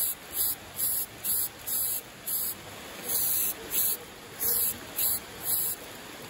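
Hand-pumped spray bottle misting water in quick repeated squirts, a short hiss about twice a second over a steady softer hiss.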